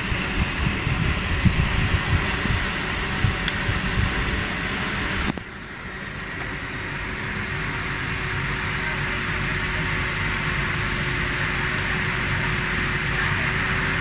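Homemade table fan's 12 V DC motor and blades running, a steady whir of moving air. For the first five seconds there is an uneven low rumble; then the level drops suddenly, and the whir continues steadier with a faint steady hum.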